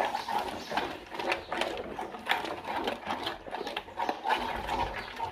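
A steel spoon stirring a thick yogurt-and-spice marinade in an aluminium bowl, with a quick, uneven run of scrapes and taps of the spoon against the metal.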